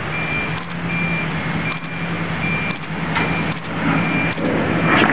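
Heavy machine's backup alarm beeping about once every three-quarters of a second over a steady engine hum, with a few sharp cracks in the second half as the steel water tower starts to topple.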